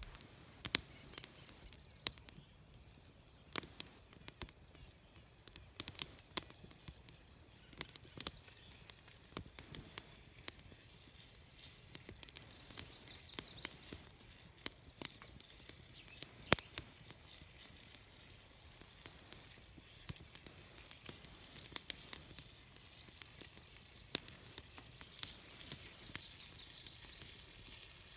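Small wood campfire crackling under bacon frying in a pan: irregular sharp pops and snaps over a faint sizzling hiss.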